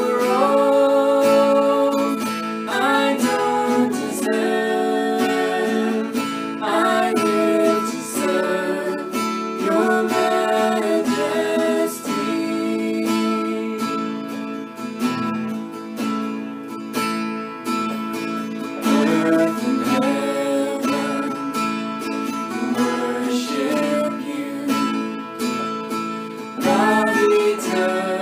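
Acoustic guitar strummed as accompaniment to a man and a woman singing a worship song together.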